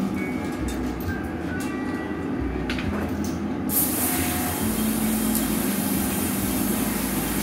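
Steady rumble and hum of a glassblowing studio's gas-fired furnace and reheating-furnace burners. A loud hiss comes in about halfway through and cuts off near the end.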